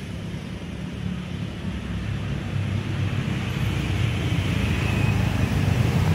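Motor scooter engine approaching on the road, a steady low hum that grows louder as it nears.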